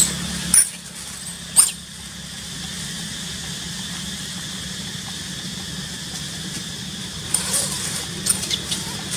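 An infant monkey squealing in short, high-pitched cries while an adult macaque handles it: two sharp squeals in the first two seconds, then a quick run of them near the end. A steady high drone runs underneath.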